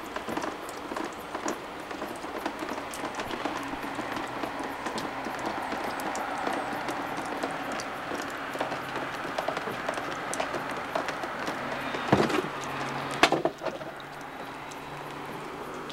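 Water from a leak dripping and trickling around a window frame and sill, a steady wash of water noise with many small drip ticks. Two louder knocks near the end.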